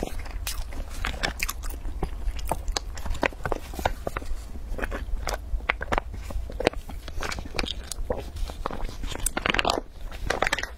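Close-miked eating sounds: a dense run of wet mouth clicks and crackles from chewing and sucking at a spouted plastic drink pouch, with a longer sucking noise near the end.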